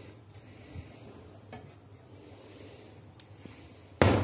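Kitchen handling sounds: a few faint clicks over a low steady hum, then a sudden loud knock near the end as the glass oil bottle is handled at the pan on the hob.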